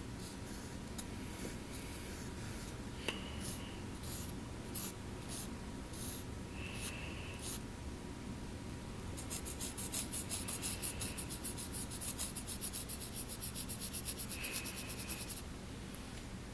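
Pencil scratching on lined notebook paper: a few separate strokes at first, then rapid back-and-forth shading strokes for about six seconds from about nine seconds in, over a steady low background hum.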